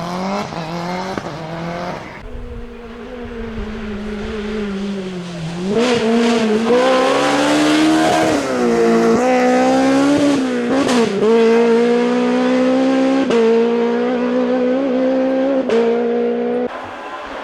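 Rally car engine at high revs. The pitch climbs in the first two seconds, then the sound grows much louder about six seconds in, with several brief dips in pitch at gear changes, before falling away shortly before the end.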